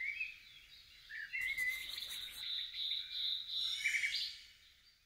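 Logo intro sound of high, bird-like chirps and short rising glides, with a brief shimmering hiss about a second and a half in and a held high whistle after it, fading out near the end.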